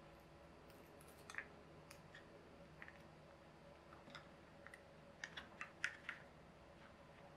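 Faint, scattered clicks and ticks of fingers handling a tiny surface-mount chip and its packaging, with a quick run of sharper clicks about five to six seconds in, over a faint steady hum.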